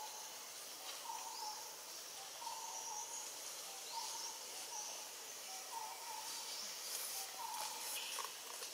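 A bird repeating a short, slightly falling mid-pitched note about every second and a half, over a steady high hiss of forest background, with a few faint clicks near the end.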